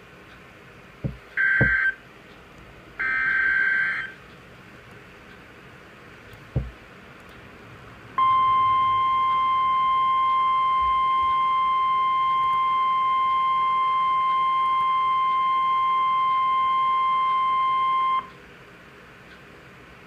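NOAA Weather Radio Emergency Alert System signal: two short screeching bursts of SAME digital header data. About eight seconds in, the steady 1050 Hz warning alarm tone sounds for ten seconds and cuts off abruptly. This alarm marks the start of a tornado warning broadcast. A couple of faint clicks come between the bursts and the tone.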